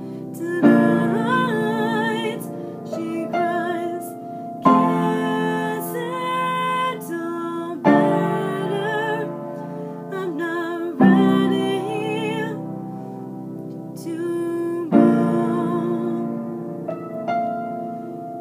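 Upright piano playing a slow ballad, with a new chord struck about every three to four seconds, and a woman singing over it with a light vibrato.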